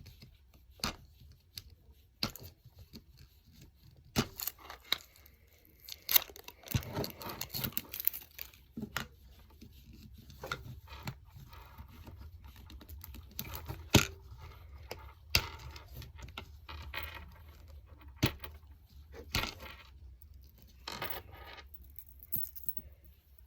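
Plastic packaging being torn and crinkled by hand in short, irregular bursts, with scattered sharp clicks and scrapes. It is hard to open.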